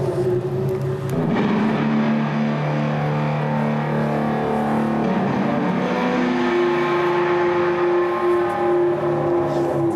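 Droning music of sustained, layered tones, changing to a new set of held pitches about a second in and again about six and a half seconds in.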